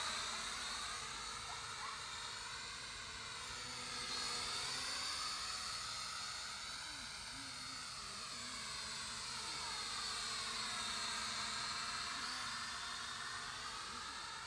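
Small quadcopter drone flying, its propellers whining with the pitch sliding slowly up and down as it manoeuvres, the sound swelling and fading as it moves.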